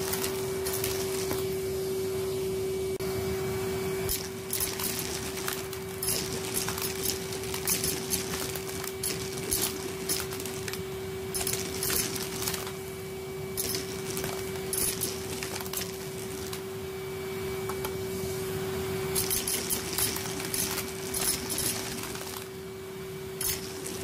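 Numatic Hetty HET 200A vacuum cleaner running with a steady motor whine as its metal wand sucks up small metal objects: paper clips at first, then brass drawing pins. The pieces clatter and click up the tube in irregular clusters.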